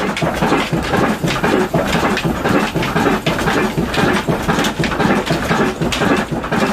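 Old single-cylinder horizontal diesel engine (a Pakistani 'black engine') running steadily under its big flywheel, an even chugging beat of a few strokes a second.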